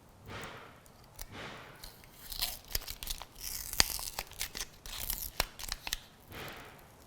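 Backing liner being peeled off a clear StompGrip adhesive tank grip: a run of crackly tearing and crinkling, loudest in the middle seconds.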